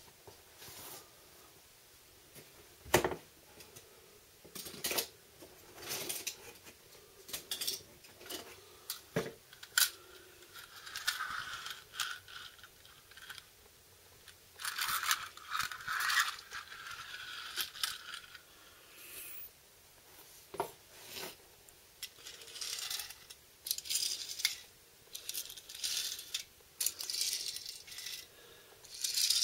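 Small die-cast toy cars clicking and clacking against each other and a hard floor as they are picked up, set down and pushed along, with short stretches of toy wheels rolling. One sharper knock about three seconds in stands out above the rest.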